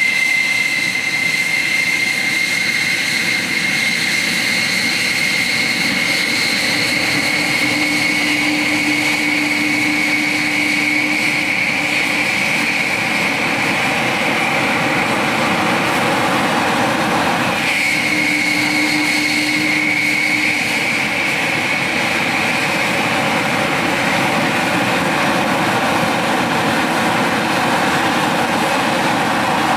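F-4F Phantom II's General Electric J79 turbojets running on the ground after a cartridge start: steady jet noise with a high whine over it. About 18 seconds in the whine breaks off for a moment and picks up again.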